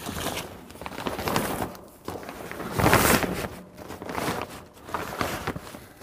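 Plastic tarp rustling and crinkling in irregular bursts as it is pulled and smoothed down over an air conditioner's outdoor condenser unit, loudest about three seconds in.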